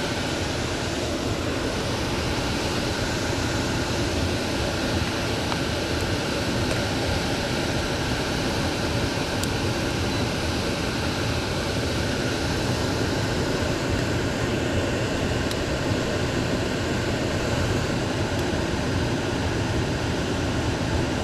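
Heating and cooling system running just after start-up: a loud, steady rush of fan-driven air with no change in pitch.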